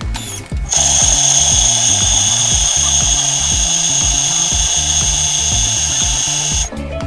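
A Thermomix kitchen machine's motor spins its blade to mix flour, yeast and butter. It gives a loud, steady, high whine that starts about a second in and cuts off abruptly about six seconds later.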